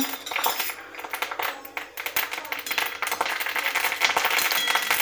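Curry leaves spluttering in hot oil in a kadhai: a dense, continuous crackle.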